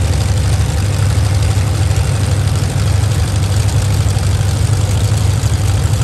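Demolition derby truck engines running steadily, a loud, even low rumble with no revving or hits.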